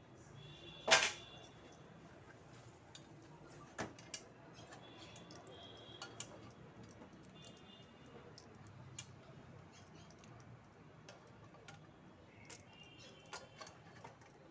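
Metal utensil clinking against an aluminium pressure cooker: one sharp clink with a short ring about a second in, then scattered lighter clicks and knocks.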